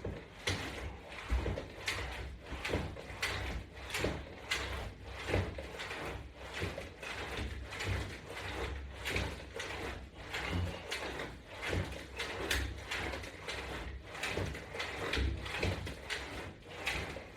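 Resistance-band exercise equipment clicking and creaking in a steady rhythm with each repetition of side crunches, as the bands and their attachment hardware are pulled and released.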